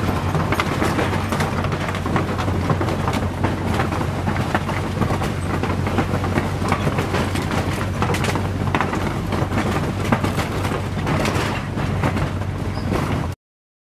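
Vehicle engine running as the tyres roll over the wooden plank deck of a suspension bridge, with a steady clatter of knocks from the loose boards. It stops suddenly near the end.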